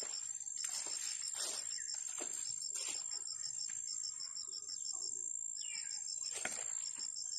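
Crickets chirping steadily: a high pulsing trill of about six pulses a second over a continuous thin high buzz. Faint scattered knocks sound underneath.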